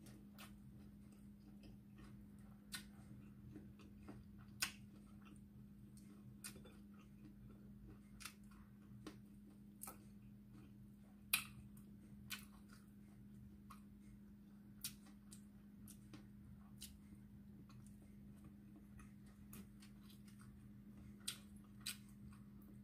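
Near silence broken by faint, irregular clicks and smacks of someone eating by hand, chewing and picking at fried fish and rice, with one sharper click about eleven seconds in. A steady low hum runs underneath.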